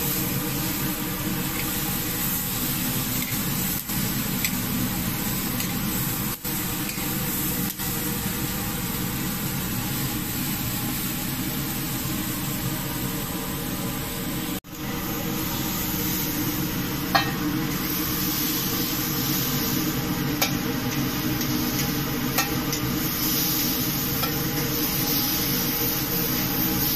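Steaks sizzling on a gas chargrill, a steady hiss, with a few light clicks of metal tongs in the second half.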